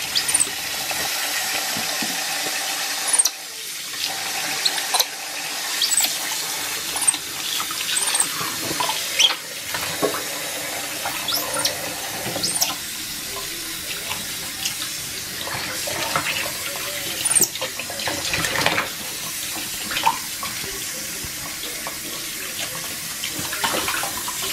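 Kitchen tap running steadily into a stainless steel sink, with frequent short splashes as a capuchin monkey is washed in the water.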